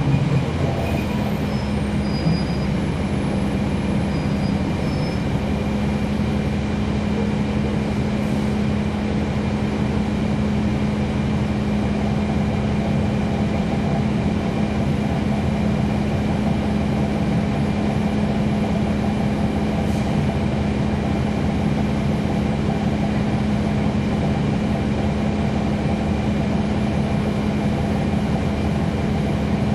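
Cabin sound of a NABI 40-ft transit bus with a Cummins ISL9 diesel engine and ZF Ecolife six-speed automatic, heard from on board: the drivetrain runs at a steady speed, a constant low hum at one pitch over a rumble, without rising or falling.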